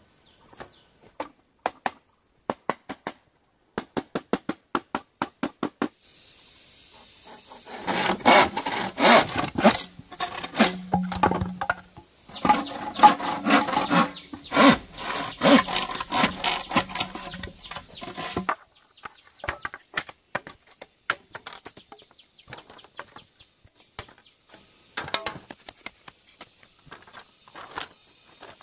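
Bamboo being worked with hand tools: a run of even sharp knocks at about three a second, then about ten seconds of dense rasping sawing strokes, then scattered lighter taps.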